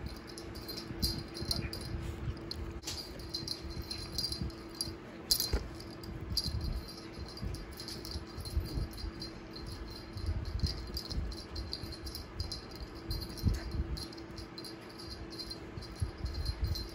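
Chipin (chihuahua x miniature pinscher) playing with a toy on a bed: quick light jingling and rattling that keeps starting and stopping as it pounces and digs, with soft thumps of its paws on the mattress. A small fan hums steadily underneath.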